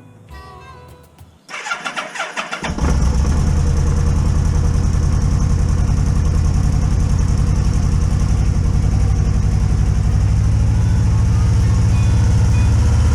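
Yamaha Vmax 1200's V4 engine being started: the electric starter cranks for about a second, the engine catches and settles into a steady idle, a little louder near the end. A short stretch of background music comes before the start.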